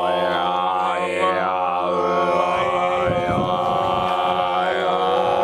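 A held, chant-like drone on one steady low note, its overtones sweeping up and down about once a second, in the manner of a chanted mantra or overtone singing.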